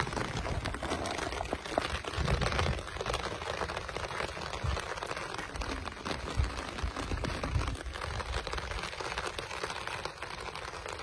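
Heavy rain falling on an open umbrella overhead: a steady, dense hiss of many small drop hits on the fabric canopy.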